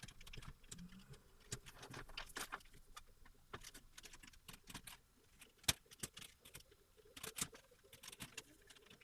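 Scattered plastic clicks and taps as a PC case's front panel is pulled forward off its clips, with a sharper snap more than halfway through and two more about a second and a half later.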